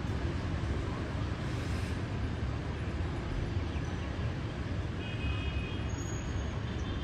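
Steady city traffic of motorbikes and cars on rain-wet streets, with a brief high beep about five seconds in.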